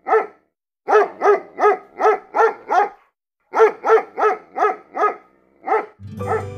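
Dog barking in quick runs of sharp barks about a third of a second apart: one bark, a pause, a run of six, a short pause, then another run and two last barks. Music comes in just before the end.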